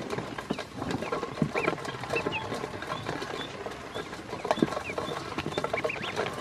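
A group of ducklings peeping in short high chirps, over a steady patter of small taps and scrabbling on a stainless steel bowl as they move about in it.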